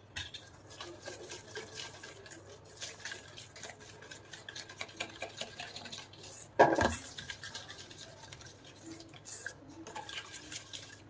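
Fingers rubbing and scraping ghee and powdered sugar together in a stainless-steel bowl, a steady run of soft scrapes against the metal, with one louder knock of the bowl about six and a half seconds in.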